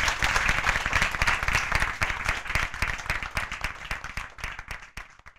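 Audience applauding, the clapping thinning and fading before it cuts off suddenly near the end.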